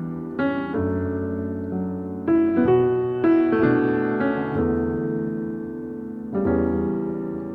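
A piano plays the slow instrumental intro of a ballad: chords struck every second or two, each ringing out and fading.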